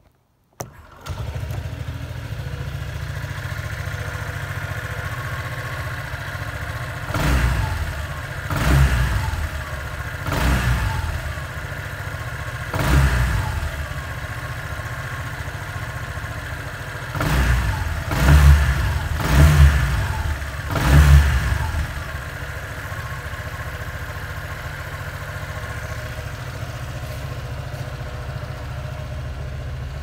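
Honda SH 150i scooter's single-cylinder four-stroke engine starting about a second in and settling to a steady idle. It revs up and back down eight times between about seven and twenty-one seconds in, then idles again.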